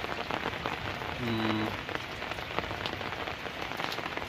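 Steady rain falling, with many individual drops ticking on nearby surfaces. A brief low hum sounds for about half a second about a second in.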